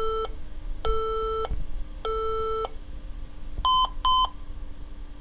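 HP ProDesk desktop's startup (POST) error beep code with no display: three long, low beeps followed by two short, higher-pitched beeps, the 3-long, 2-short error pattern.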